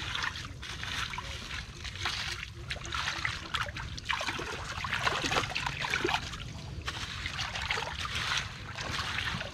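Shallow water and wet mud splashing and trickling in irregular bursts as they are stirred up.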